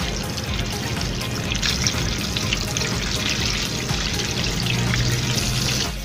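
Chicken pieces deep-frying in a pot of hot oil: a steady, dense sizzle and crackle that grows a little louder about two seconds in.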